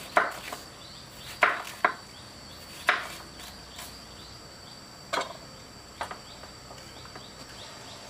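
Crickets trilling steadily in the background, with about six sharp knocks at uneven intervals over it.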